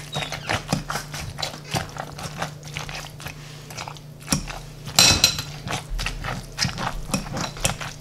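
Potato masher pressing down through thick spinach artichoke dip in a glass bowl: irregular wet squishes and sharp knocks against the glass, a couple or more a second, the loudest about five seconds in.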